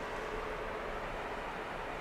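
Steady drone of a passenger ferry under way, heard from its open deck: an even rushing noise with one constant mid-pitched hum from the ship's machinery.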